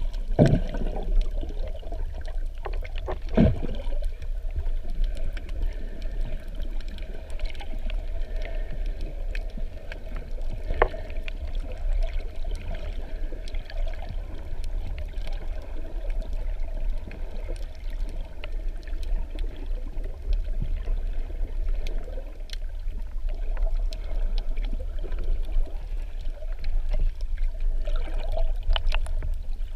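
Underwater sound picked up by a camera in a waterproof housing: a steady low rumble of moving water, with two sharp knocks in the first few seconds and faint scattered clicks.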